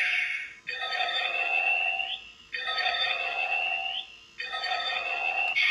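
Ultraman Blazar Memorial Edition Blazar Brace transformation toy playing an electronic sound effect through its small speaker. It is one buzzy, chiming phrase that ends in a short rising note, repeated three times about every two seconds, like a standby loop.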